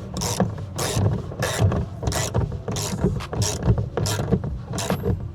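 A ratchet wrench being worked back and forth to tighten a bolt inside a car door, each swing giving a short rasp of clicks, about one and a half strokes a second. The bolt tightens anti-clockwise.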